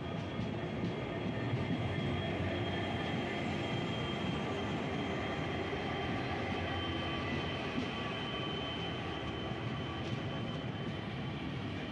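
A WDG4 diesel locomotive and its train of loaded container wagons passing close alongside: steady running and wheel rumble, with a thin high whine held over it.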